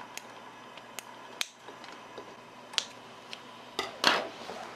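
Kitchen scissors snipping dried shredded squid strips in a ceramic bowl: about six short, sharp snips at uneven intervals, then a louder, longer rustle about four seconds in.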